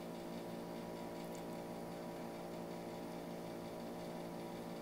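Steady low electrical hum with faint hiss (room tone from the narrator's microphone), and a faint click about a second in.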